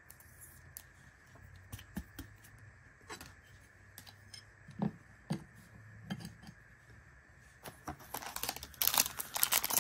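Light clicks and taps of a trading card being slid into a rigid plastic card holder and set on a stand, then, from about eight seconds in, the growing crinkle of a foil Panini Prizm card pack being pulled from the hobby box.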